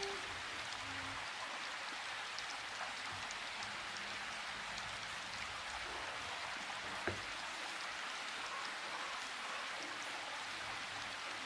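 Steady, even hiss like light rain falling, with one faint click about seven seconds in.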